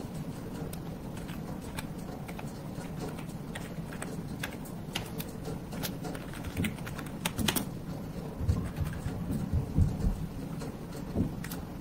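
Computer keyboard being typed on: scattered key clicks over a steady low hum. Louder dull low thumps join in during the second half.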